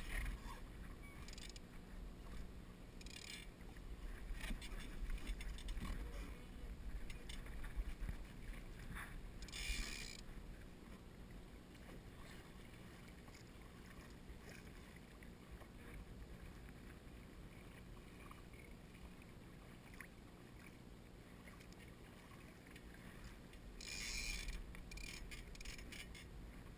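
Water lapping and splashing against the hull of a Laser sailing dinghy under way, over a steady low rumble of wind on the microphone. Short hissing splashes come about ten seconds in and again near the end.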